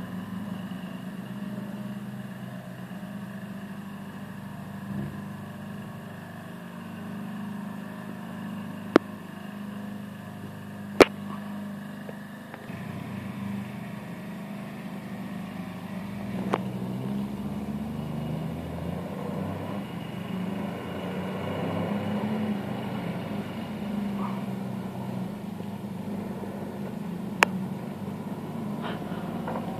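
Volvo TL11 4x4 truck's engine running steadily, getting a little louder as the truck draws near. Four sharp clicks stand out, two of them close together about a third of the way in.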